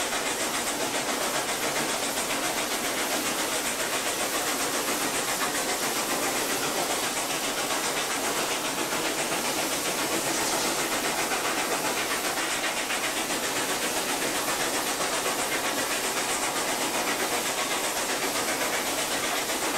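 Steady cab noise of Norfolk & Western Class J No. 611, a 4-8-4 steam locomotive, running at speed: an even rush of steam hiss and running-train sound.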